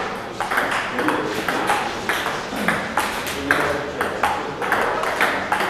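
Table tennis rally: the ball clicking sharply off the paddles and the table in quick succession, with voices of onlookers in the hall.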